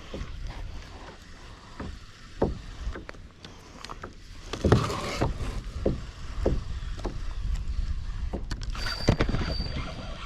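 Knocks, bumps and rubbing handling noise in a small fishing boat, picked up by a GoPro strapped to the angler's body, over a low rumble. A louder stretch of rustling comes about halfway through, and a thin, steady high tone sounds over the last second and a half.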